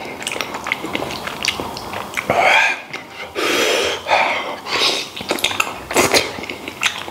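Close-miked eating sounds: chewing, sucking and wet lip-smacking on soft, gelatinous braised beef trotter, with chopsticks clicking against a porcelain bowl. There is a loud slurp about three and a half seconds in.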